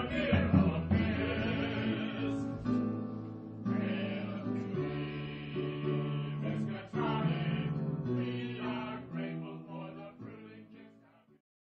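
Choral music: several voices singing held notes together, the chords changing every second or so, fading out near the end.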